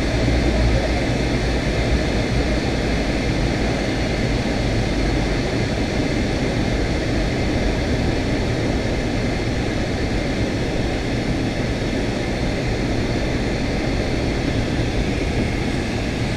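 Steady cabin noise of a Boeing 757-200 airliner in flight, heard from inside the cabin: a constant rush of jet engine and airflow noise. Its deep rumble eases slightly about five seconds in.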